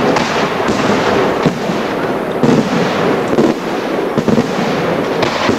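Aerial fireworks barrage: a dense, unbroken run of shell bursts and crackling stars, with many sharp bangs a second over a continuous crackle.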